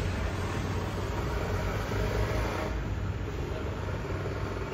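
Steady street noise with a low rumble of traffic.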